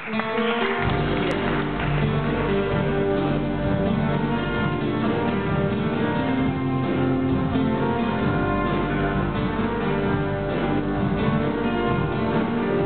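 Live acoustic band with cello playing the instrumental introduction of a song. It starts suddenly, and low bass notes join about a second in.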